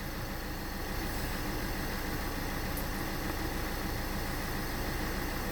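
Renault 1.5 dCi four-cylinder diesel engine idling steadily and evenly, with no misfire now that the faulty cylinder 1 injector has been replaced.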